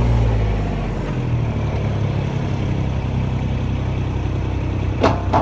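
Portable engine-driven irrigation pump running steadily as it draws water from a pond. A louder vehicle engine drops away in the first second, leaving the pump engine's even hum. A few short sharp sounds come near the end.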